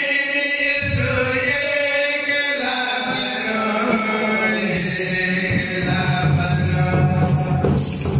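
A man sings a hymn into a microphone over a loudspeaker, in a chant-like line. About five and a half seconds in, a loud low instrumental accompaniment joins in.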